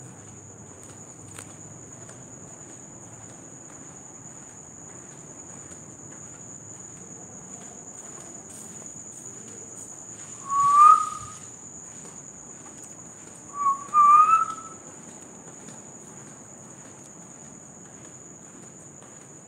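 Crickets chirring in a steady high, unbroken tone. About halfway through come three short rising whistles, one and then two close together a few seconds later, louder than the crickets.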